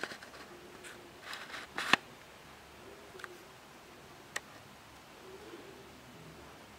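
Quiet room with a few soft rustles and clicks in the first two seconds, the loudest a sharp click about two seconds in, and one more sharp click a little past the middle.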